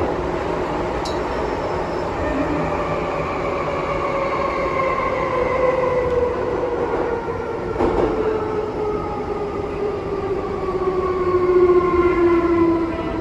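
MTR M-train metro car braking: its traction equipment gives the howl it is known for, a whine of several tones falling steadily in pitch as the train slows, over the running noise of the car. Two short clicks come about a second in and again near the eight-second mark.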